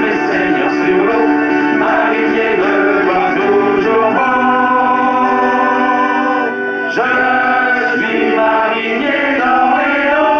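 A folk group singing together into microphones, accompanied by accordion and guitar. About two-thirds of the way through there is a short break before the next phrase comes in.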